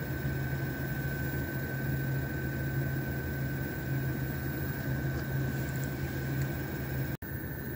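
Workshop machinery running steadily: a low hum with a steady high whine over a haze of noise. It cuts out for an instant near the end, then carries on.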